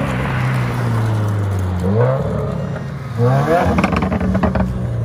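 2016 Subaru WRX's turbocharged flat-four, through a Remark Stealth axle-back muffler delete, running steadily and then revved twice, about two and three seconds in. The second rev is followed by a rapid string of exhaust crackles and pops lasting about a second.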